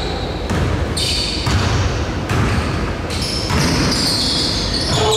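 Basketball bouncing on a hardwood court during play, with high, short squeaks of sneakers on the floor.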